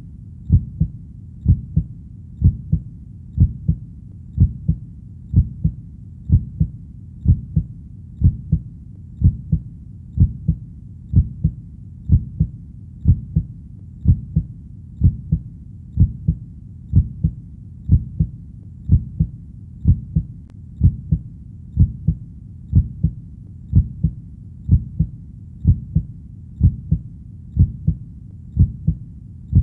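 Heartbeat: deep paired lub-dub thumps repeating in a steady, even rhythm.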